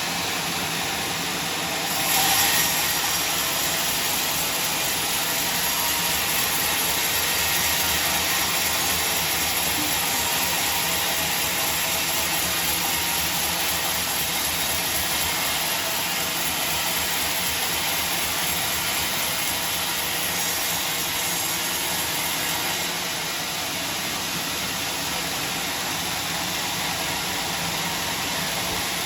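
Sawmill running with a steady, hissing machine noise. It gets louder with a short burst about two seconds in, holds, and eases slightly near the end.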